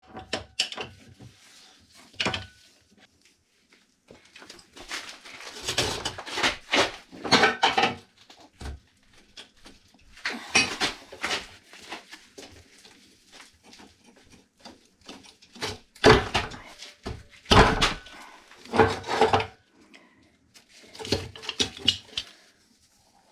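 Irregular clatter, knocks and scrapes of metal tools and parts being handled during work on an old 5-ton hydraulic bottle jack. The sounds come in several bursts with short pauses, and two sharp knocks in the second half are the loudest.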